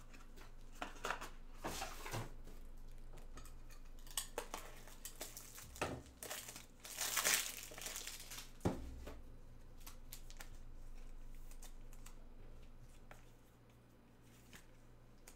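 Plastic trading-card packaging being crinkled and handled, with scattered small clicks and rustles. There is a longer, louder crinkling burst about seven seconds in and a single sharp knock soon after.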